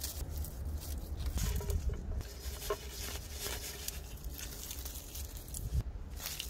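Dry straw and dead-leaf mulch rustling and crackling as a gloved hand rummages through it, in irregular short crunches over a steady low rumble.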